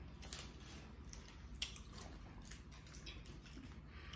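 Faint eating sounds from a powder-dipped candy sucker: scattered small mouth clicks and smacks, one a little louder about one and a half seconds in.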